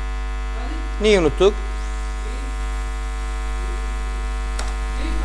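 Steady electrical mains hum with many overtones on the recording. A short spoken utterance comes about a second in, and a single sharp click comes near the end.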